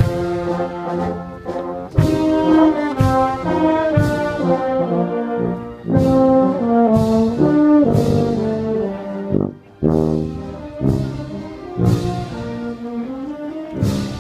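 Marching wind band (harmonie) of saxophones, horns, euphoniums and tubas playing a processional march. A percussion stroke marks the beat about once a second, with a brief break about two-thirds of the way through.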